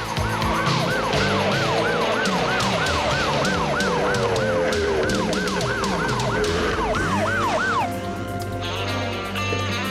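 Emergency-vehicle siren sounding in fast rising-and-falling sweeps, about three a second, that stop about eight seconds in. Music plays underneath.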